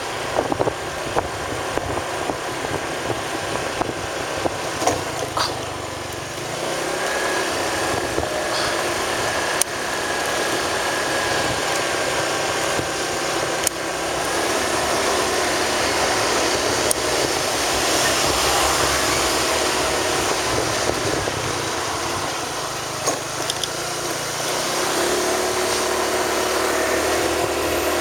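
Vehicle engine running steadily with road noise while travelling along a road, with a few light knocks and clicks.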